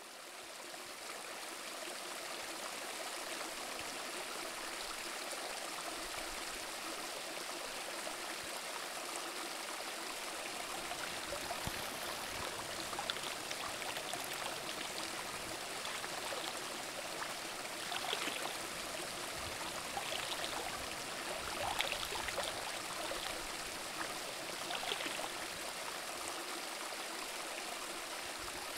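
Shallow rocky stream running and trickling over stones, fading in over the first second or two, with a few small splashes as hands dip and scoop in the water.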